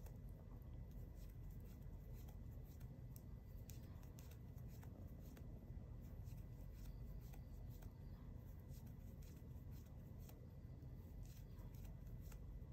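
Faint light clicks and rustles of a metal crochet hook and yarn as a chain is worked by hand, over a low steady room hum.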